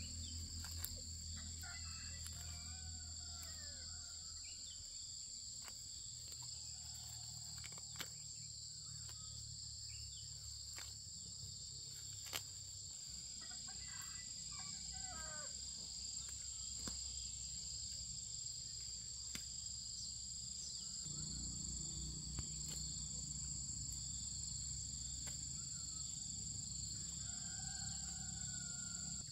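Steady high-pitched insect chorus, shrilling in two unbroken bands. A bird chirps briefly three times, with a few faint clicks in between.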